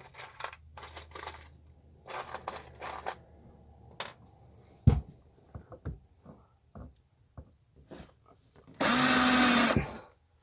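Cordless drill-driver running for about a second near the end, driving a screw into a board. Before it come scraping, rustling handling noises and one sharp knock about five seconds in.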